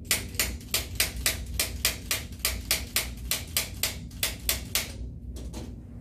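Chiropractic Activator adjusting instrument firing against the neck: a rapid, even run of sharp spring-loaded clicks, several a second, that stops about five seconds in, followed by a few more clicks.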